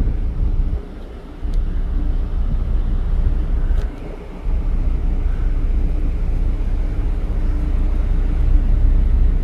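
Wind buffeting the microphone aboard a ferry: a heavy low rumble that drops out briefly twice, with a faint steady hum underneath.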